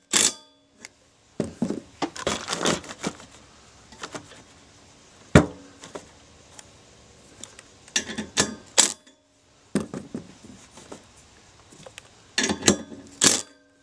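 Loose metal hardware, nuts and washers, clinking and rattling in a handful of short bursts, with a single sharp click about five seconds in.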